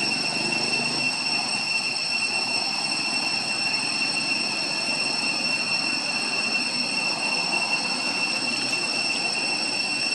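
Steady high-pitched drone of insects: several sustained, unchanging tones held throughout.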